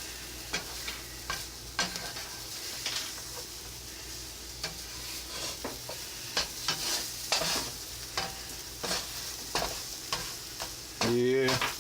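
Scrambled eggs sizzling in a hot frying pan while a utensil stirs them, with repeated short scrapes and knocks against the pan.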